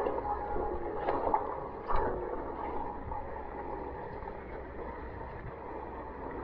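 Water rushing along a Nordic Kayaks Nitro 600 surfski surfing a boat wake. A few paddle splashes peak in the first two seconds, then a steadier, slightly quieter wash.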